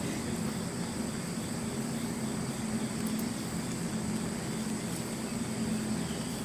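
Steady outdoor background noise: a constant low hum with faint steady high-pitched tones above it and no distinct events.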